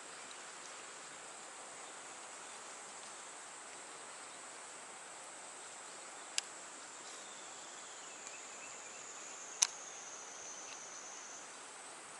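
Steady high-pitched insect drone over a quiet outdoor hiss, broken by two sharp clicks about three seconds apart, the second louder.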